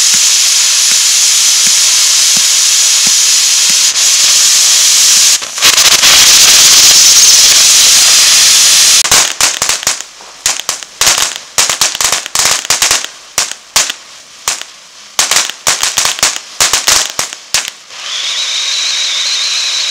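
Ground firework fountains spraying sparks with a steady loud hiss. About halfway through it turns into a rapid run of sharp crackling pops. Near the end a new fountain takes over with a steady hiss that carries a high thin whistle.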